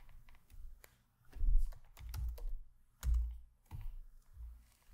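Typing on a computer keyboard: scattered key clicks, with two louder knocks about a second and a half and three seconds in.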